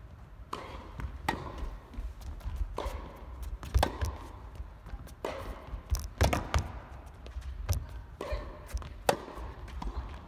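Tennis ball being struck by rackets and bouncing on an indoor court: a dozen or so sharp knocks at uneven intervals, the loudest around the middle.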